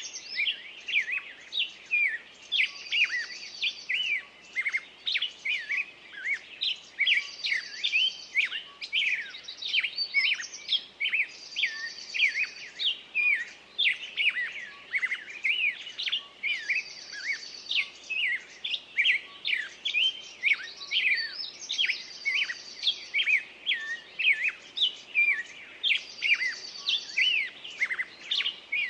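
Small songbirds chirping busily: a continuous run of short chirps, with a higher trill that comes back about every four to five seconds.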